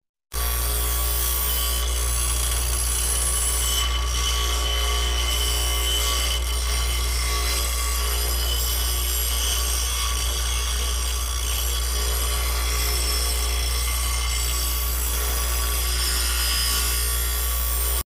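Digital Craft mini die grinder (rotary tool) running steadily with a grinding stone pressed against iron nail heads: a constant motor whine under a scraping grinding noise as the nails are ground down. The sound starts a moment in and cuts off just before the end.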